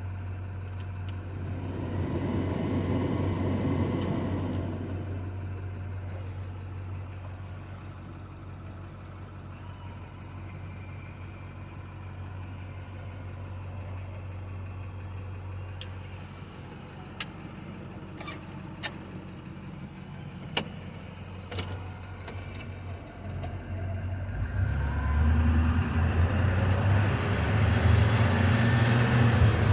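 2012 International TerraStar's V8 diesel engine idling steadily, with a few sharp clicks in the middle. About six seconds before the end it runs louder and faster.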